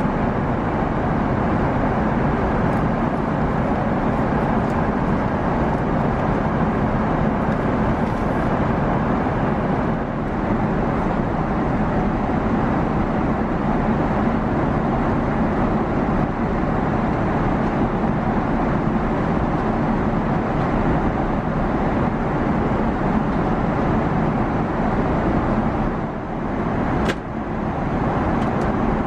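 Steady cabin noise of a Boeing 777-300ER in flight: engines and rushing air as one constant, even rush inside the cabin. Near the end the noise dips briefly and there is a single click.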